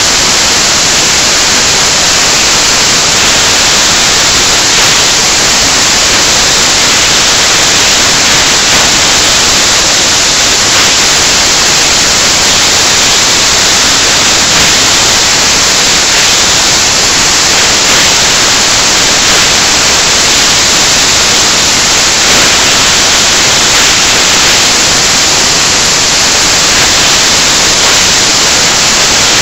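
Loud, steady static hiss that masks any other sound, strongest in the high treble and unchanging throughout.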